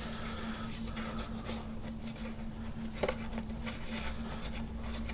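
Light rustling and scraping as fingers handle and pull the fabric covering on a balsa frame, over a steady electrical hum, with one sharp tap about three seconds in.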